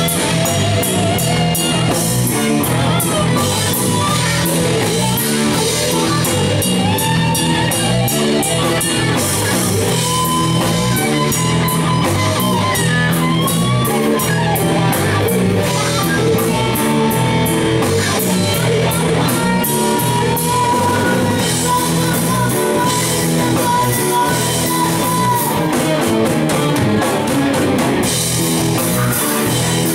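Live rock band playing loud: electric guitars, bass and drum kit, with a held, bending lead guitar line over busy drumming and cymbals.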